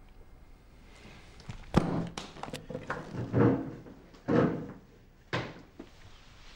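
A sudden sharp thud about two seconds in, then a few quick knocks and two longer bouts of scuffing clatter, with one more sharp knock near the end.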